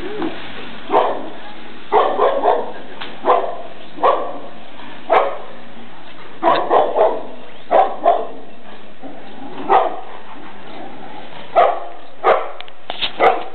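Golden retriever barking repeatedly in alarm at an unfamiliar wooden statue: short single barks and quick runs of two or three, spaced irregularly about a second apart.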